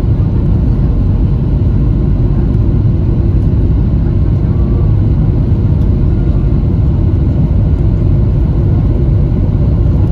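Steady low rumble of engines and rushing air inside the cabin of a Boeing 737-700 on the last seconds of its landing approach, coming down to the runway.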